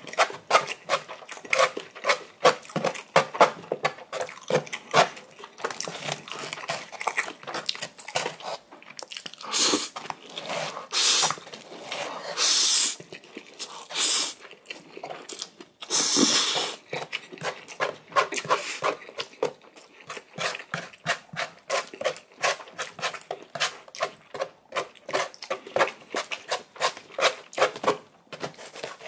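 Close-miked eating of instant noodles: rapid wet chewing and mouth clicks, with several longer slurps of noodles between about ten and sixteen seconds in.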